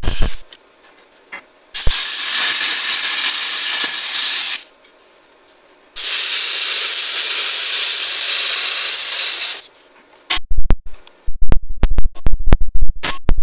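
A cutting torch hissing through the steel of a truck frame rail in two long even passes, each starting and stopping abruptly. Then a quick run of about a dozen hammer blows on the steel, knocking the cut-off taper strip free.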